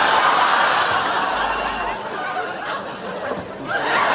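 Studio audience laughing, the laughter easing off about two seconds in and swelling again near the end.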